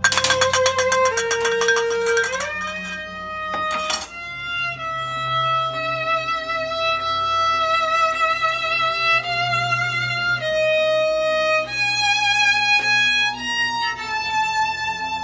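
Solo violin improvising: long bowed notes with slow slides between pitches, opening with a burst of fast repeated bow strokes.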